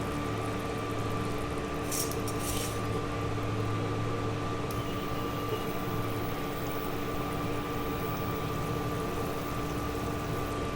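Masala gravy for egg curry simmering and bubbling in a kadhai, with a brief hiss about two seconds in, over a steady hum.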